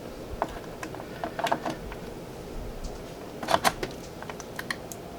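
Scattered clicks and knocks of a PCIe M.2 NVMe adapter card being handled and fitted into a computer's expansion slot, with the loudest cluster of clicks about three and a half seconds in.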